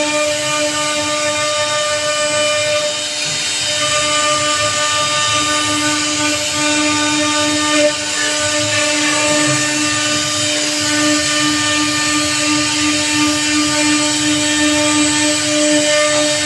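CNC router spindle running with a steady whine as its bit carves into a teak wood door panel, over a constant hiss of cutting. A brief louder moment comes about halfway through.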